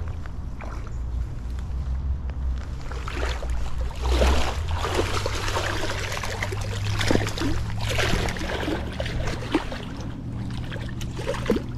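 Shallow stream water splashing and sloshing around wading legs, louder in surges about four seconds in and again near eight seconds, over a steady low rumble.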